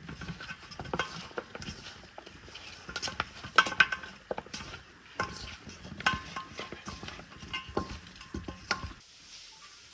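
Metal utensil clanking and scraping against a metal cauldron, a run of irregular strikes with a ringing tone, loudest about three and a half seconds in; it stops about a second before the end.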